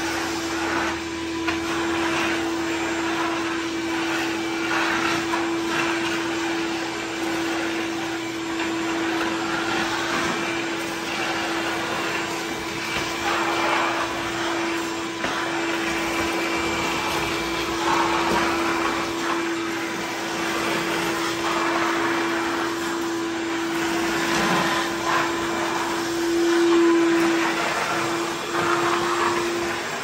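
Ridgid 16-gallon wet/dry shop vacuum running with a steady motor whine, the rush of air swelling and easing as the floor nozzle is swept over wood shavings and leaves on a concrete floor.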